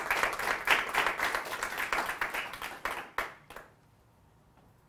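Audience applauding: a roomful of people clapping, which thins to a few last claps and stops about three and a half seconds in.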